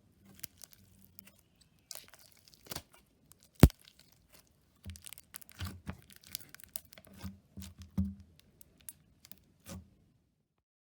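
Slime being played with by hand: an irregular run of sticky pops, crackles and clicks as it is pressed and stretched, with one sharp snap a few seconds in, stopping shortly before the end.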